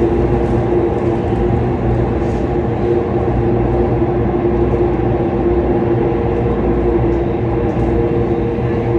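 Singapore MRT Circle Line metro train running between stations, heard from inside the carriage: a loud, steady rumble with an even two-note motor whine that holds constant.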